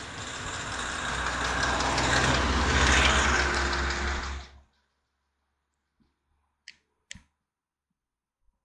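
Hill-climb race car passing at speed, its engine and road noise growing louder to a peak about three seconds in, then stopping abruptly. Two faint clicks follow near the end.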